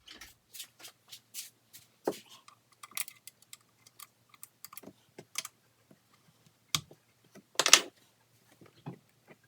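Hand tools clicking and scraping against metal in irregular short taps while the Allen bolts holding the Sea-Doo GTX carburetors are undone, with a louder brief rattle just before the end.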